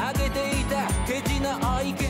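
Background music: an upbeat pop track with a steady kick-drum beat, about three beats a second, under a melody line.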